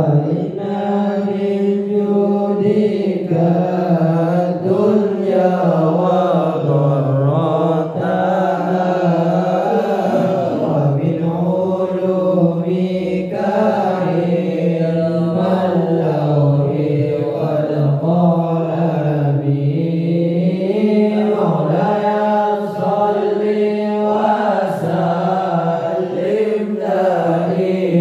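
Unaccompanied sholawat, Arabic devotional praise of the Prophet, chanted by a young man's voice through a microphone in long, flowing, ornamented phrases.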